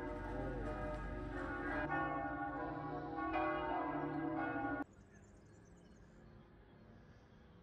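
Church bells ringing, several bells with overlapping tones and fresh strikes about two and about three and a half seconds in. The ringing cuts off abruptly about five seconds in, leaving only a faint background.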